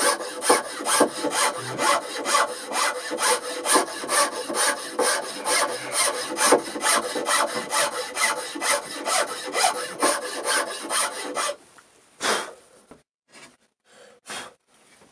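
Hand file scraping across wood in quick, even back-and-forth strokes, about three a second, trimming a high spot level in a lap-joint recess; the filing stops about eleven and a half seconds in, followed by a few light knocks.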